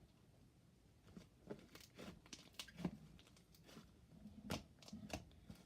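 Thick clay slime being squished and stretched by hand, giving off scattered small pops and crackles as air pockets in it burst; she calls it "so sizzly".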